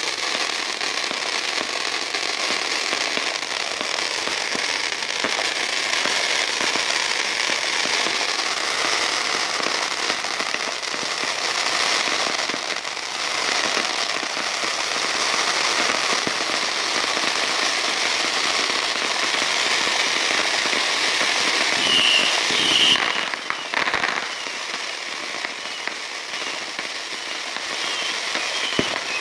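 Fireworks crackling and popping in a dense, continuous rattle of small bangs, with a louder burst about three-quarters of the way through, after which the crackle eases off. A few short high chirps come in near that burst and again near the end.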